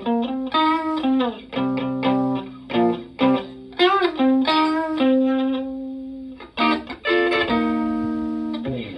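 Stratocaster electric guitar played through a Vox Tone Bender V828 fuzz pedal and a Twin Reverb-style amp: a lead phrase of picked notes with string bends, then two long held notes that die away slowly.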